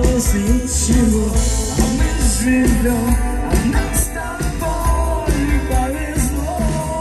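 Live rock band playing: drums with repeated cymbal hits, a heavy bass line, and a wavering melodic lead line over them.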